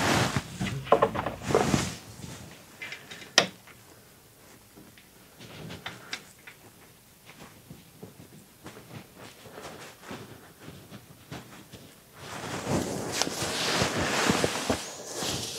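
Hands fitting the bolts into a brake caliper, giving light clicks and metal taps. There is one sharp click about three and a half seconds in, then a few seconds of rustling near the end.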